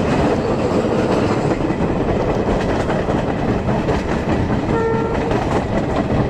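Passenger train running at speed, heard from a coach window: a steady rush of wind and wheel noise with a faint clatter of the wheels on the rails. About five seconds in, a short horn blast sounds.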